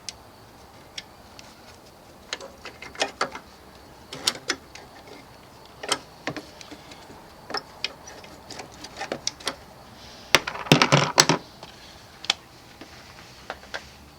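Irregular metallic clicks and taps, as tools and car parts are handled during work on the car, with a denser clatter at about ten and a half to eleven seconds.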